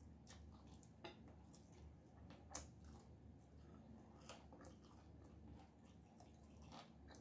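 Very faint eating sounds of a meal taken by hand: a few soft clicks and smacks, the loudest about two and a half seconds in, over a low steady hum.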